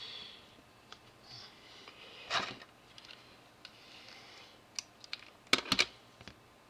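Light clicks and taps of small items being handled and set down on a workbench, with a soft rustle at the start, a louder knock about two and a half seconds in, and a quick cluster of clicks near the end.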